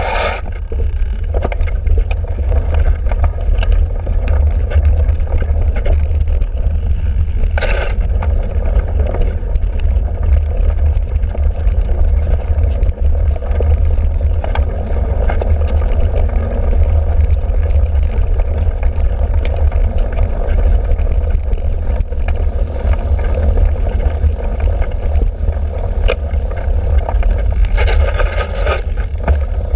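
Wind buffeting the microphone of a handlebar-mounted camera on a cyclocross bike, over the rumble and small rattles of the bike riding across rough, muddy grass. Short bursts of louder hiss come about eight seconds in and again near the end.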